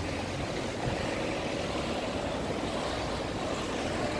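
Street traffic: cars driving past on a cobbled road, a steady noise of engines and tyres.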